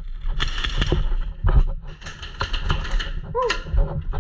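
Airsoft guns firing rapid bursts of clicking shots, with two main bursts about half a second and two seconds in.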